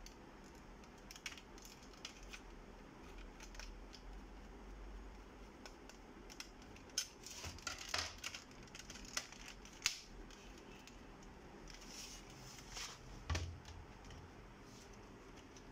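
Scattered clicks, taps and rustles of hands handling a screwdriver and the opened metal chassis of an all-in-one PC. The taps bunch together in the middle, and a heavier knock comes near the end.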